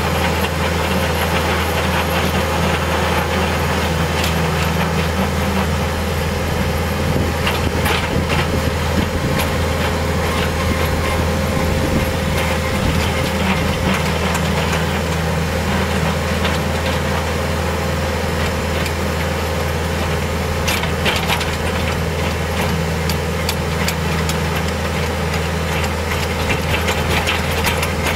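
Compact tractor engine running at a steady speed, driving an Imants Root Pruner through its PTO shaft as the rotor works through the turf. A few brief sharp clicks stand out over the steady drone.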